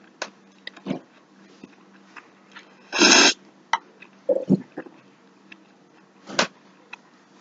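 A dog giving a few short yelps and a whine, the loudest a yelp about three seconds in, with small mouth clicks from chewing in between.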